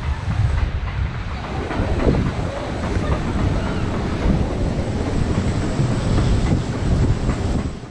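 Stormforce 10 water-ride boat being carried up the lift hill: a steady mechanical clattering and rumble from the lift, with wind buffeting the microphone.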